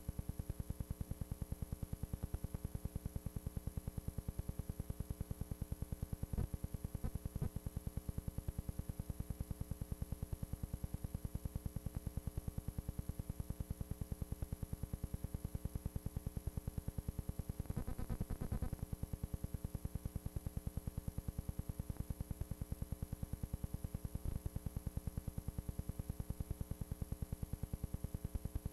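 Steady electrical buzz from the old tape's audio track: a fixed hum at several pitches with a fast, even pulsing and a faint high whine. There is a brief crackle about two-thirds of the way through.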